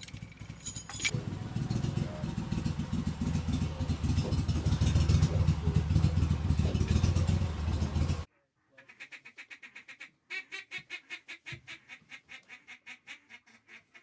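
Low engine rumble of a utility vehicle being driven, growing louder. After a sudden cut, a long run of mallard-style quacks, about four a second in two strings, fading toward the end.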